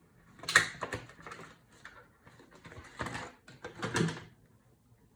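Handling noise from small parts being worked by hand: a few short bursts of clicks and rustling, the loudest about half a second in and again around three and four seconds in.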